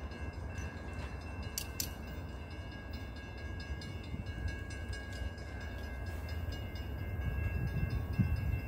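Distant freight train led by a GE ES44AC diesel locomotive approaching: a low rumble that grows louder over the last couple of seconds.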